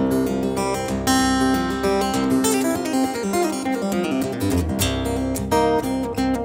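Solo cutaway acoustic guitar playing, with bass notes under chords and melody and a sharp accented chord about a second in and another near the end.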